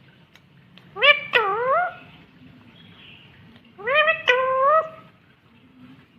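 Ringneck parrot vocalizing in two short bursts, about a second in and about four seconds in, each a few notes that rise and then bend in pitch.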